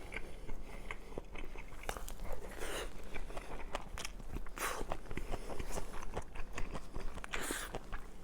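A person chewing and eating braised pork and kimchi (kimchi-jjim) close to the microphone, with many small mouth clicks and a few longer noisy sounds about two and a half, four and a half and seven and a half seconds in.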